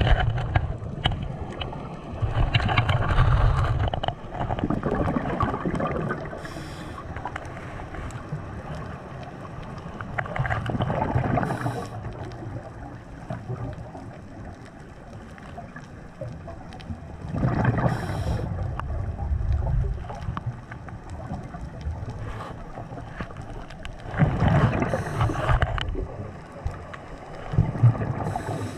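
Scuba diver breathing through a regulator underwater: a gurgling rush of exhaled bubbles about every seven seconds, each lasting one to two seconds, with a steady watery hiss in between.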